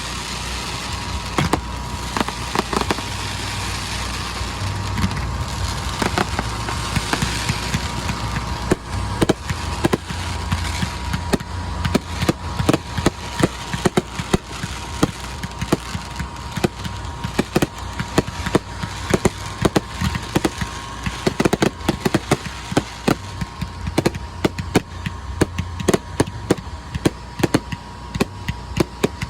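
Fireworks show: a hissing, crackling stretch, then a dense string of sharp bangs and pops from about ten seconds in, many a second. A thin steady tone runs underneath.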